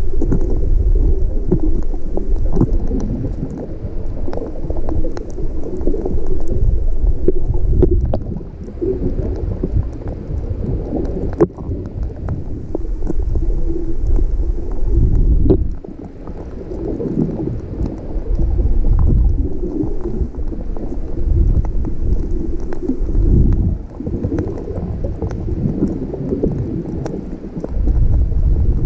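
Muffled low rumble and sloshing of water moving around a GoPro Hero 5 held underwater in shallow reef water. It swells and fades every few seconds, with scattered faint clicks.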